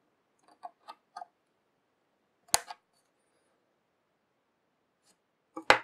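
Side cutters snipping the protruding ends of 0.4 mm stainless steel coil wire on a rebuildable atomizer deck: a sharp click about two and a half seconds in and another near the end, with a few faint ticks in the first second.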